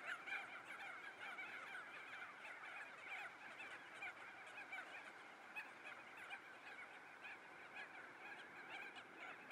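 A flock of birds calling continuously, many short calls overlapping one another, faint.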